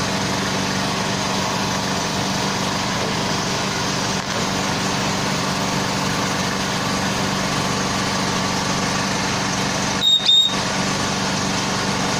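Diesel engine of a boom truck running steadily, with a constant hum. About ten seconds in, a short, louder burst with a high tone cuts briefly across it.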